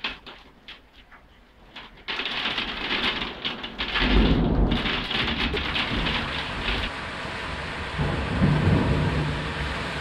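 Heavy rain pouring down, at first with separate drops ticking. About two seconds in the rain suddenly gets much louder, and thunder rumbles low twice, at about four seconds and again at about eight.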